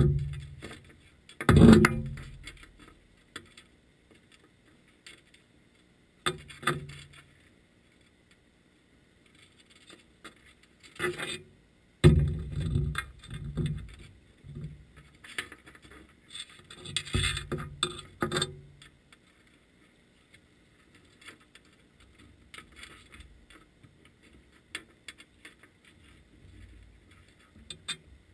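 Irregular knocks and scrapes heard underwater through a camera housing on a spanner crab net resting on the seabed. They come in loud clusters, near the start, about a second and a half in, around 6, 11–14 and 17–18 seconds, with quiet stretches between.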